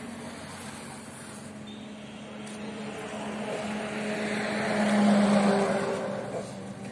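Steady hum from the car-carrier truck's hydraulic system as its large steel side panel is lowered. A road vehicle passes, its sound swelling and fading, loudest about five seconds in.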